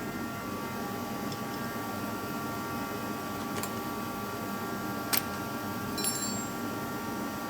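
A few clicks and one sharp snap from the plastic top cover of a Dolmar PS 7300 chainsaw being unlatched and taken off to reach the air filter, over a steady background hum.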